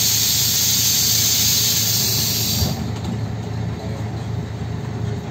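Scania CN113CLL city bus: a loud hiss of compressed air from its pneumatic system that cuts off abruptly about halfway through, over the steady low hum of the idling diesel engine.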